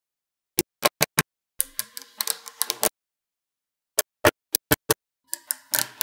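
Small magnetic balls clicking sharply as blocks of them snap onto a wall built of magnet balls: a few single clicks, then a dense clattering rattle of many balls. The pattern comes twice.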